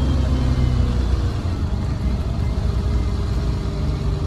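2005 MAN 15.220 bus, with its six-cylinder diesel engine running steadily while under way, heard from inside the passenger cabin.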